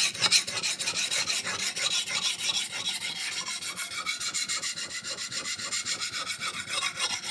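Steel knife blade scraping back and forth on a finer-grit diamond sharpening stone: a rasping sound in quick, even strokes, several to the second.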